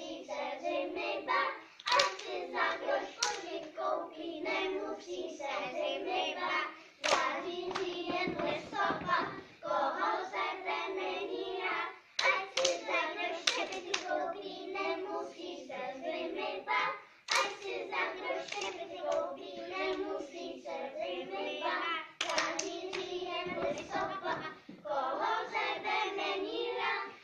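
A group of young children singing a song together while clapping their hands. The singing comes in phrases with short breaks about every five seconds.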